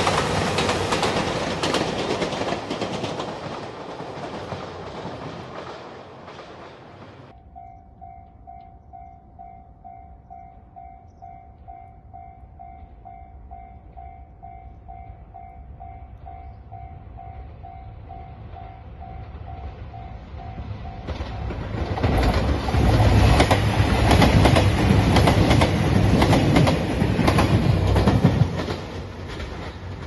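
A passing train's noise fades away, then a Japanese level-crossing bell rings in a steady pulse about twice a second. About 22 seconds in, the Nanpu diesel limited express passes close by for about six seconds, with a loud engine rumble and wheel clatter.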